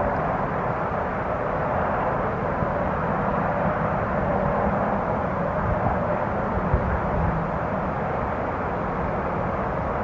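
Strong winter wind blowing over the microphone, a steady rushing roar with gusty low rumble.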